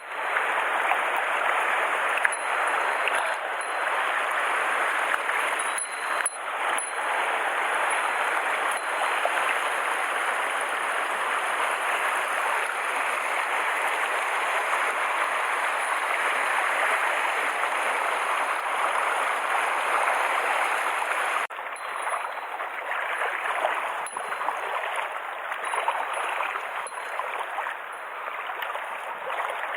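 Mountain stream water rushing steadily, with a few faint clicks near the start; the rush steps down a little in level about two-thirds of the way through.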